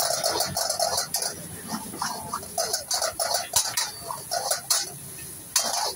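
Metal ladle scraping and clanking against a steel wok in quick, irregular strokes as rice is stirred and tossed.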